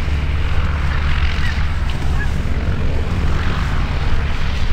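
Distant light propeller aircraft engine droning over a strong, steady low rumble.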